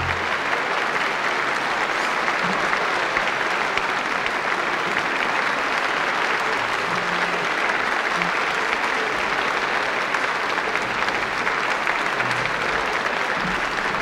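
Concert-hall audience applauding steadily: dense, even clapping from a large crowd.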